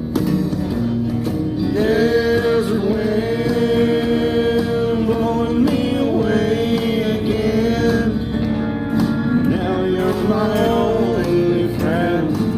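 Slow country song: a lead melody of long, held notes that slide between pitches, over instrumental backing.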